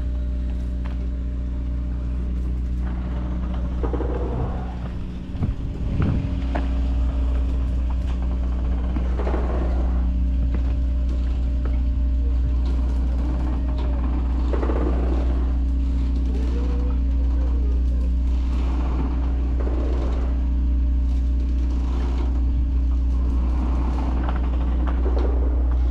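An engine running steadily at idle: a deep hum with an even buzz above it. It falters briefly about five seconds in and comes back slightly louder. Short, fainter sounds rise over it every few seconds.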